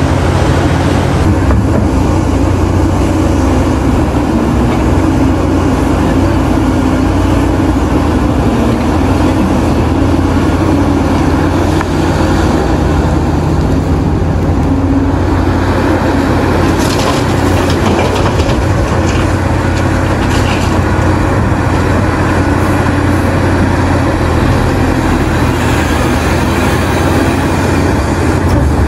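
Caterpillar 6015B hydraulic mining excavator's C27 diesel engine running steadily under load as it digs and swings. About halfway through, rock and dirt clatter several times as the bucket loads.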